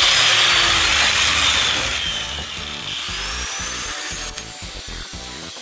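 Corded angle grinder with a cutting disc running with a loud high whine that slowly sinks in pitch and eases off about two seconds in, then spins up again with a rising whine as it is brought to the rusty steel frame rail.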